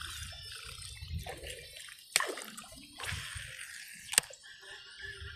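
Whopper Plopper topwater bass lure being reeled across the water surface, its spinning tail splashing and gurgling, with two sharp clicks about two seconds apart.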